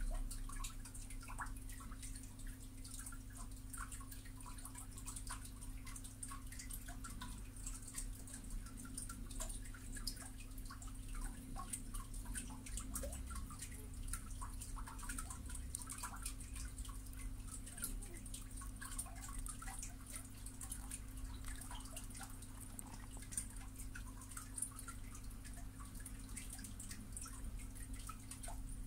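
Faint room tone: a steady low electrical hum with scattered, irregular small ticks and clicks.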